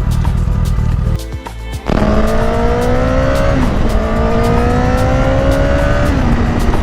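Honda CBR1000RR inline-four engine under hard acceleration. After a brief dip about a second in, the pitch climbs steadily with two upshifts, running cleanly with its misfire fixed.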